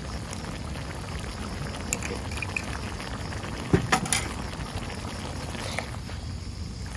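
Pork stew with tomato sauce simmering and bubbling in a wok, a steady wet bubbling. A few sharp knocks about four seconds in.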